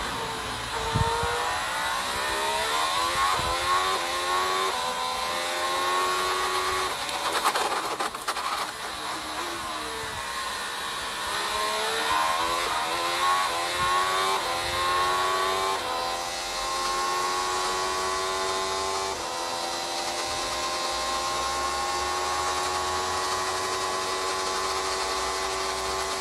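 Onboard sound of a 2016 Renault RS16 Formula One car's 1.6-litre turbocharged V6 hybrid engine, pulling hard with quick upshifts that drop the revs in steps, easing for a slow corner, then climbing up through the gears and holding high revs at full throttle before the revs start to fall as it brakes right at the end.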